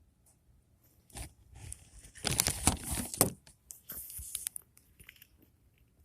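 Close rustling and clicking handling noises: a run of crinkly clicks about two seconds in, then a few sharper clicks about four seconds in.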